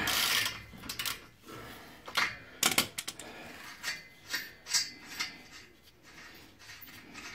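A nut being spun off by hand from a rusty exhaust flange bolt at the flexi pipe joint: irregular metallic clicks and scrapes. A louder rasp comes at the very start, and two sharper clicks about two and a half seconds in.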